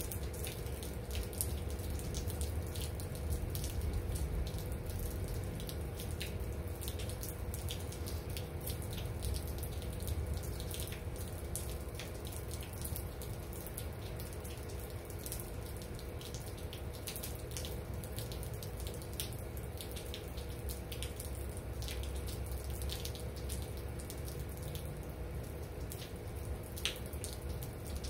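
Steady rain falling, with frequent single drops dripping close by and a low rumble underneath.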